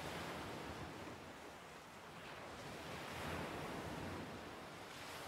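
Sea ambience: an even wash of waves and wind, easing a little about two seconds in and swelling again after about three.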